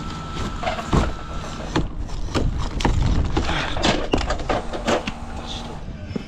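A quick, irregular run of knocks and clatters, densest about two to five seconds in, over a low steady hum.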